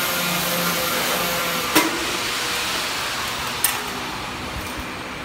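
Steady hiss of workshop machinery noise with two sharp knocks, about two seconds apart, as the elevator frame and belt are handled.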